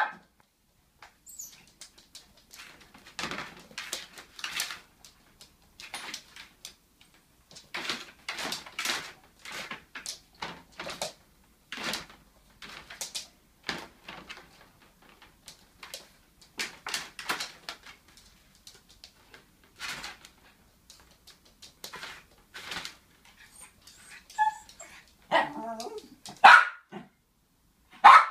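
Small terrier barking, yipping and whining in short bursts over and over, with a stretch of whining a few seconds before the end and its loudest barks near the end: a dog worked up over its ball, which lies out of reach in a laundry basket.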